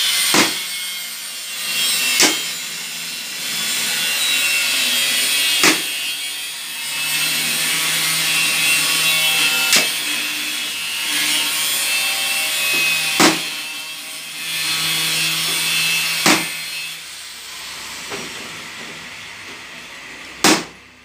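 Hammer tapping the end of a screwdriver set against an electric fan's motor, about seven sharp strikes a few seconds apart, with scraping of metal against metal in between.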